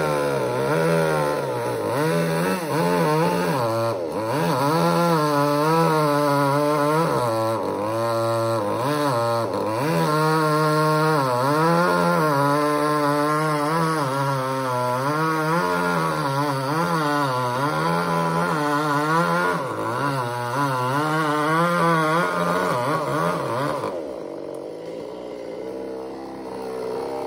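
Chainsaw running at high revs while cutting, its pitch repeatedly dipping and rising as the chain loads up in the wood and frees again. It falls quieter near the end.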